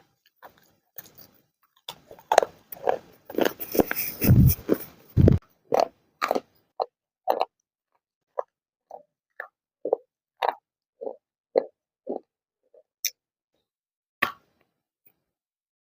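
Dry clay crunching and cracking: a dense run of loud crunches about two seconds in, then single short cracks every half second or so, growing sparser toward the end.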